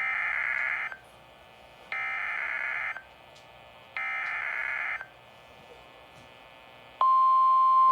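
Emergency Alert System SAME data tones: three buzzing digital bursts of about a second each, a second apart. About seven seconds in, a steady single-pitch alert tone begins.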